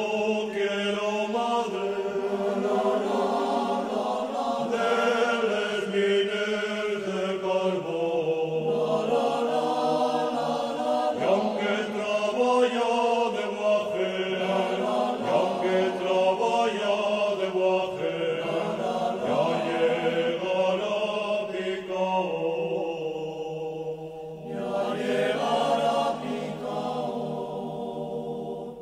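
Background music: a slow vocal chant with long held sung notes.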